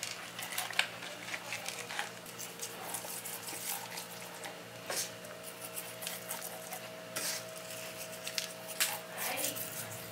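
Hands rubbing coarse salt into the skin of whole tilapia on a wooden board: irregular gritty scratches and small clicks, over a faint steady hum.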